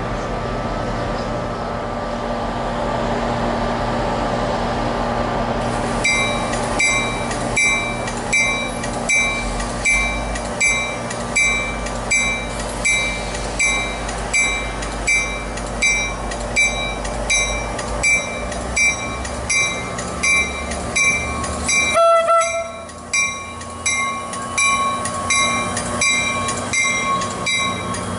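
Commuter train rolling slowly into a station with a low, steady rumble. From about six seconds in, a bell rings steadily at about one and a half strikes a second. About three quarters of the way through there is one brief, loud pitched tone, the loudest moment.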